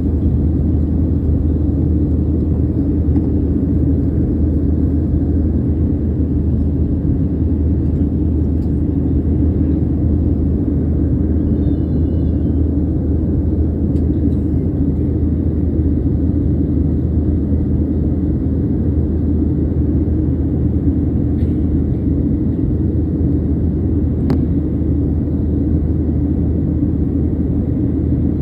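Steady low rumble of a vehicle running along, heard from on board.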